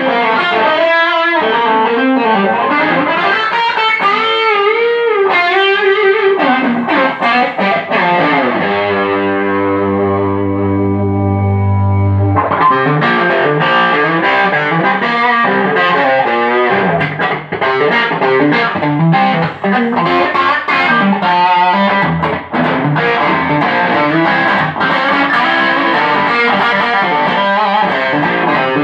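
Distorted electric guitar from a GRS Les Paul through a Marshall Jackhammer distortion pedal into an AcedoAudio VL50 50-watt amp, playing riffs with bent notes. About a third of the way in, one low note or chord is left to ring for about four seconds, then fast rhythmic riffing picks up again.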